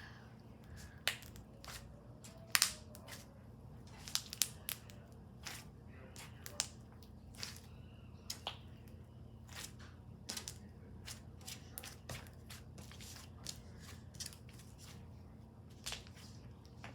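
Slime being squeezed and stretched by hand, with irregular small clicks and pops, the loudest pair about two and a half seconds in.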